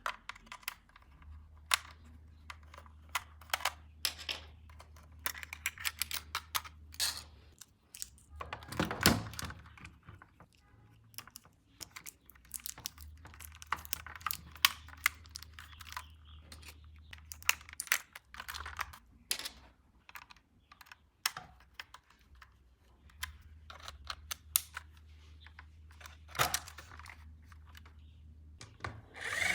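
Quick, irregular clicks and taps of hard plastic being handled, with a denser clatter about nine seconds in and a low hum under much of it.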